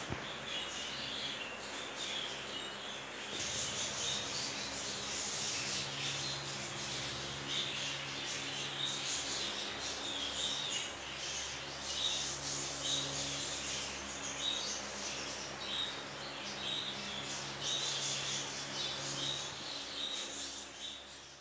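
Dry seed mix rustling and shifting as hands stir it in a tub, with small birds chirping in the background.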